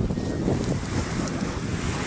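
Steady wind rushing over the camera microphone.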